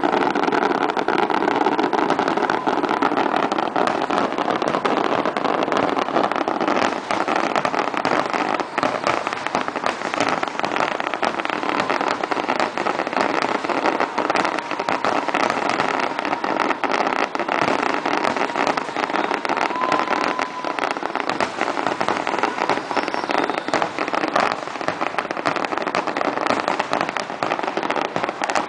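Fireworks display going off without a break: a dense, continuous crackle of many pops and bangs.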